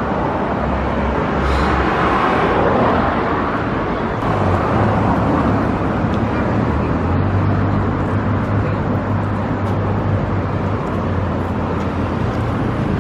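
Busy city street traffic: cars passing close by, with a loud swell in the first few seconds, and an engine's steady low hum from about four seconds in.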